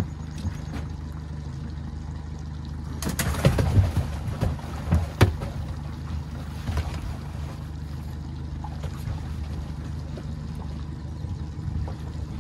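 Knocks and rattles of gear being handled in a jon boat, a cluster of sharp clunks about three to five seconds in and one more a little later, over a steady low rumble.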